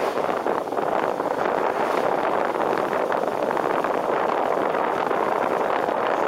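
Steady rushing noise of a car driving on a wet road, picked up by a camera mounted on the outside of the car: wind on the microphone mixed with tyres on wet pavement.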